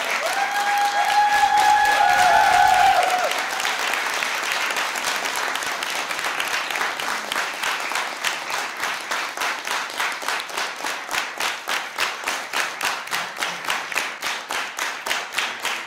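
Theatre audience applauding, with a held tone over the clapping in the first three seconds. About halfway through, the applause settles into rhythmic clapping in unison, about three claps a second.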